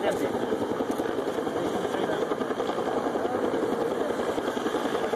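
Steady chatter of a crowd of onlookers, with a vehicle engine idling underneath.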